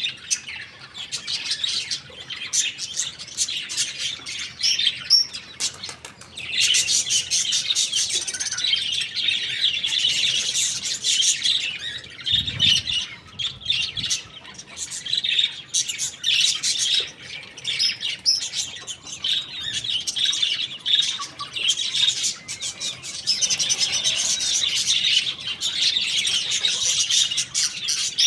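Birds chirping continuously in dense, high-pitched, rapid notes, with a brief low thump about twelve seconds in.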